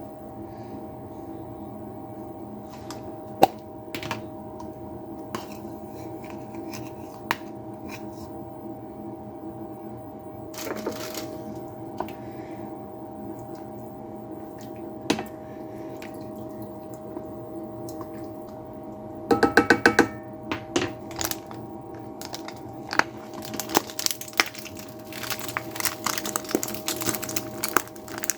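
Kitchen utensils and dishes clinking and tapping while ramen broth is seasoned, over a steady hum. A quick run of loud ringing clinks comes about 19 seconds in, and a busy stretch of clatter near the end.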